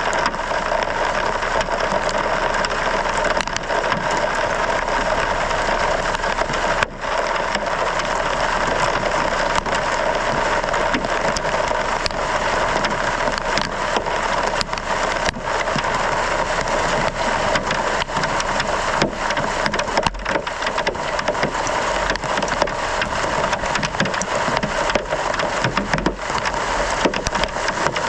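Hailstones clattering down in a heavy hailstorm: a steady roar of falling ice dotted with many sharp individual hits.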